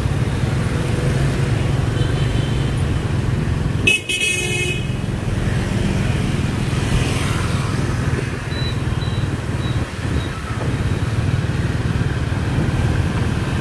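Dense motorbike and car traffic running steadily, a constant low drone of small engines. A short horn honk sounds about four seconds in.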